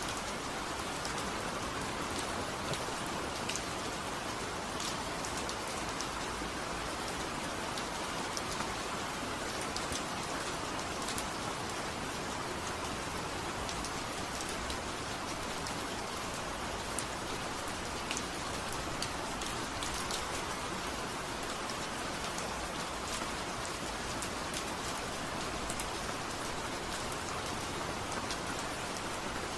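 Steady rain falling, an even hiss dotted with scattered ticks of individual drops.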